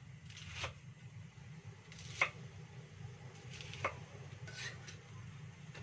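Wide-bladed cleaver slicing a vegetable on a thick wooden chopping board: a few separate knocks of the blade on the board, about one to two seconds apart, the loudest about two seconds in. A steady low hum lies underneath.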